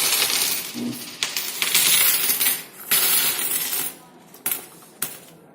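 Loose coins clinking and rattling as a heap of collected cash is handled, for about four seconds, followed by two single sharp clicks near the end.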